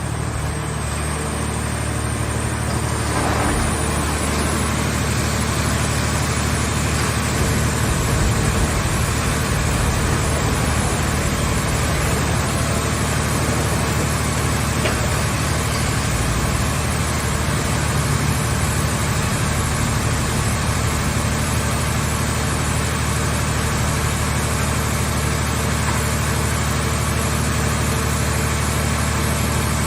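Hydraulic scrap-car baler's power unit running steadily, an engine-like hum with the drone of its hydraulic pump.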